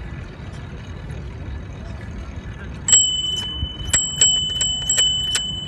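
Bicycle handlebar bell rung repeatedly, about eight quick rings starting about three seconds in, as a warning to pedestrians on the path ahead. Before that there is only a low rumble of wind and tyres on pavement.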